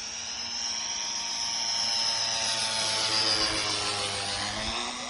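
Radio-controlled scale model Mitsubishi J2M3 Raiden making a low pass. Its engine and propeller whine grows louder, peaks about three seconds in, then drops in pitch as it goes by.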